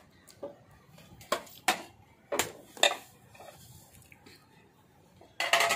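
A few light kitchen clinks and taps of utensils against plates, four short ones spread over the first three seconds and a louder, briefly ringing one near the end, as spices are put onto chopped spinach on a plate.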